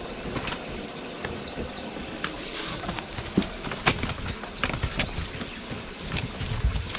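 Plastic tarpaulin crackling and rustling as kittens scramble over it. Sharp clicks and taps start about two and a half seconds in, over a steady background hiss.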